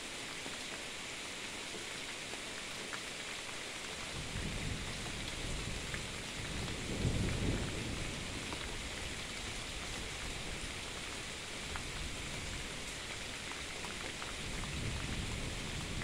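Steady rain falling, with a low rumble of thunder that builds about four seconds in, is loudest a few seconds later, and swells again near the end.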